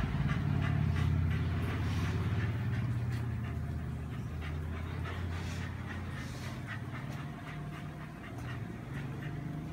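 Shaggy mixed-breed dog panting and moving about, with a few light clicks, over a low steady rumble that slowly fades.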